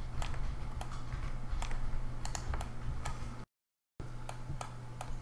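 Irregular clicks of a computer keyboard and mouse, about two a second, over a steady low hum. The sound drops out completely for about half a second a little past three seconds in.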